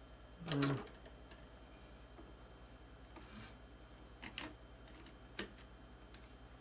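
A few light clicks and taps of a small aluminium cylinder being worked by hand into a slider block: two close together about four seconds in and one sharper click about a second later, over a faint low hum.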